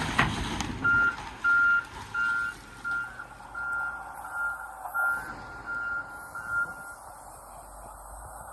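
Backup alarm on heavy equipment beeping about eleven times, a little under two beeps a second, getting fainter as it goes. A burst of loud machine noise is heard at the very start.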